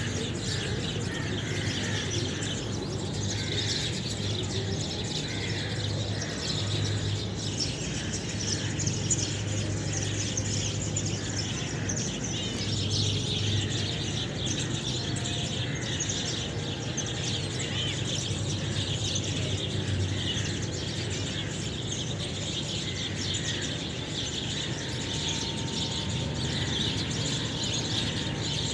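A chorus of many small birds chirping continuously, dense overlapping tweets, over a steady low hum.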